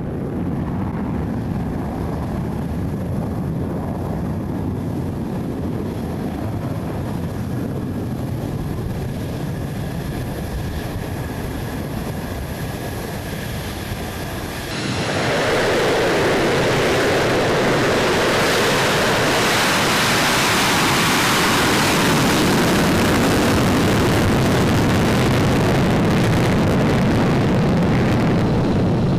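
Jet engine noise from an F-35A Lightning II's single Pratt & Whitney F135 turbofan: a steady rumbling hiss with a faint whine, which cuts abruptly about halfway through to a louder, fuller roar.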